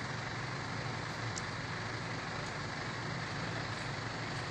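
Steady outdoor street noise with a low, even motor hum and no distinct events.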